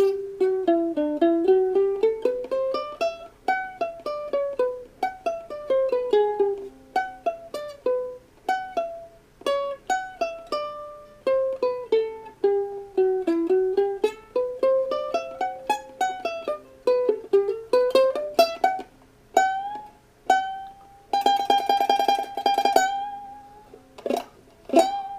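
Ukulele played one note at a time, running up and down a scale again and again. About 21 seconds in, a single high note is picked rapidly for about two seconds, then a few more plucked notes follow.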